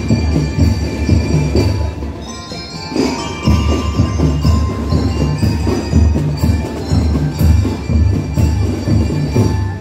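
Drum and lyre corps playing: metal bell lyres ringing out a melody over a steady, pulsing drum beat, easing briefly about two seconds in before picking up again.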